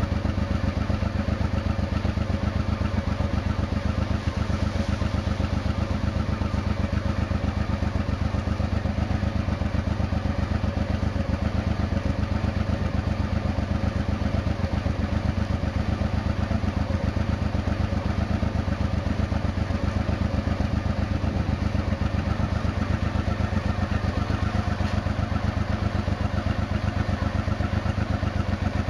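A 1992 Honda XRV750 Africa Twin's V-twin engine idling steadily, heard close at the exhaust silencer as an even, rapid pulsing.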